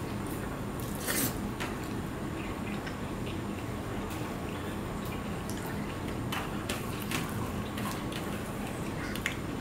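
Fingers mixing rice with curry on a steel plate: wet squishing with scattered short clicks of fingertips and food against the metal.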